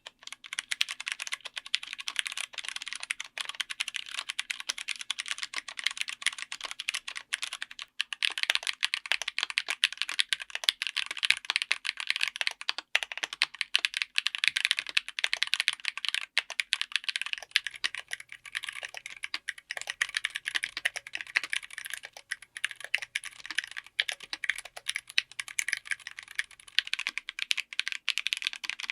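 Mechanical keyboard fitted with tactile switches being typed on fast and continuously, a dense run of keystroke clicks with a couple of brief breaks.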